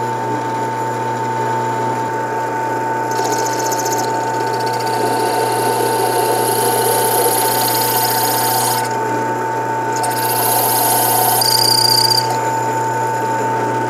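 Mini benchtop drill press running with a steady motor hum while its bit cuts into the small catch of an Atlas Gunworks tooless guide rod. The cutting comes in three spells of high-pitched grinding as the bit is fed down, the last with a brief high squeal near the end.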